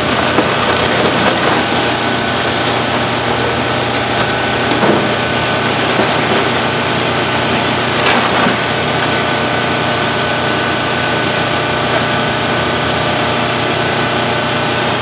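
Komatsu PC400LC hydraulic excavator's diesel engine running steadily under load while it pulls apart a wooden house, with a few sharp cracks and crunches of breaking timber, the strongest about eight seconds in.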